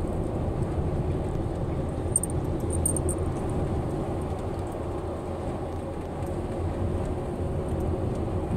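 Steady loud wind and road noise inside a car driving at highway speed.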